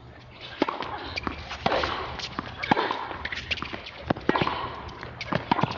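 Sounds of tennis play on a hard court: sharp, irregular knocks of the ball off rackets and court, with shoe steps, over a murmur of crowd noise that rises about half a second in.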